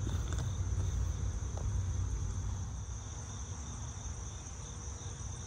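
Steady high-pitched drone of an insect chorus, crickets, holding on without a break over a low rumble.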